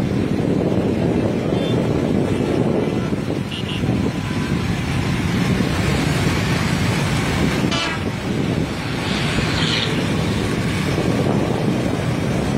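Small motorcycle engines running at road speed with steady road and wind noise, broken by a few short high toots.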